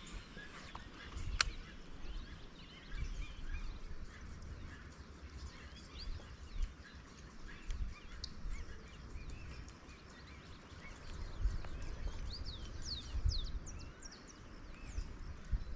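Outdoor ambience at a pond: wind rumbling on the microphone, with birds chirping and a run of quick chirps near the end. A single sharp click about a second and a half in.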